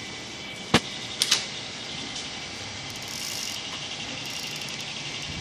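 Bicycle spokes flicking against a playing card taped to the frame, making a steady motor-like buzz as the wheel turns while ridden. A couple of sharp clicks sound about a second in.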